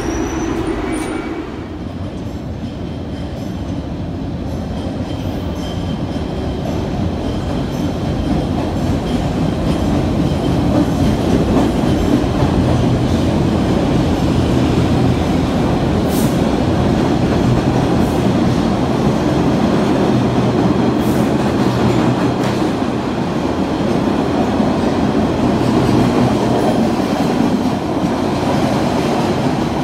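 MBTA Red Line subway train running along an underground station platform: a loud, steady rumble that builds over several seconds, with a low hum through the middle and a couple of sharp clicks.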